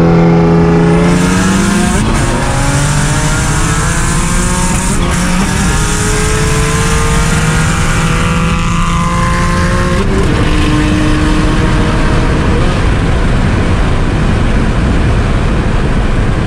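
Single-turbo Nissan 350Z's 3.5-litre V6 at full throttle, heard from inside the cabin: the engine pitch climbs, drops at a gear change about two seconds in, climbs again and drops at another shift about ten seconds in, under a steady loud rushing hiss.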